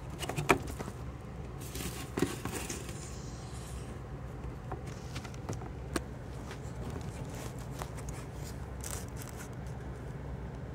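Handling noise close to the microphone: scattered light clicks, scrapes and brief rustles of a plastic RC truck and the camera being moved about, over a steady low hum.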